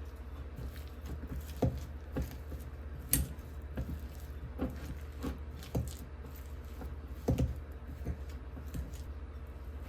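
Kitchenware being handled: a dozen or so irregular light clinks and knocks, a few sharper ones, over a steady low hum.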